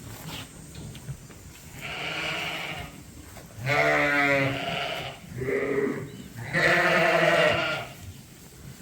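Sheep bleating: about four separate bleats, the louder ones with a quavering pitch.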